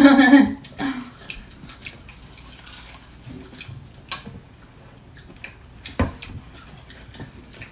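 A brief voice sounds at the very start. Then comes quiet eating: soft chewing of battered, deep-fried squash blossoms and small clicks of chopsticks, with one sharper click about six seconds in.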